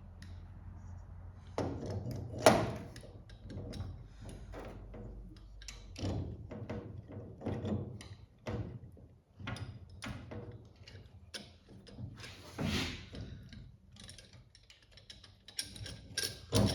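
Metal parts and hand tools clinking and knocking on a workbench while master cylinders are threaded onto a pedal assembly, with a sharp knock about two and a half seconds in and another near the end.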